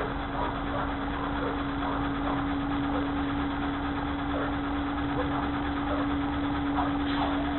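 Garbage truck's diesel engine idling close by: a steady running sound with a constant hum, thin and muffled through a security camera's microphone.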